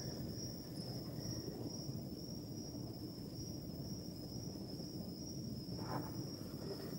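Cricket trilling steadily in one continuous high note, faint, over a low background hiss, with one soft short sound about six seconds in.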